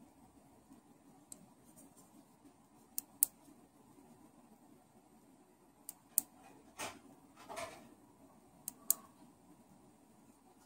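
Push-button switch on a LEADBIKE LED bicycle tail light clicked in quick pairs, press and release, three times as the light is switched on and through its modes. There are short rustles of the light being handled between the clicks.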